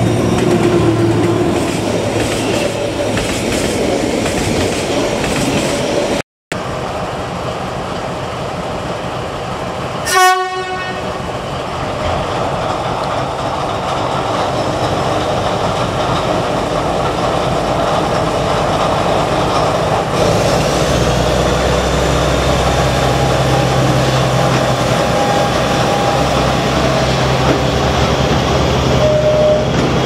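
Diesel-hauled freight trains passing, engine running and wagons clattering over the rail joints. A short horn blast comes about ten seconds in, and a deep steady engine rumble sets in during the last third.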